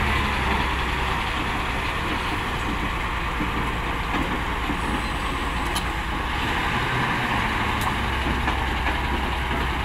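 Heavy diesel engine of a hydraulic excavator running steadily at working speed, a constant low drone.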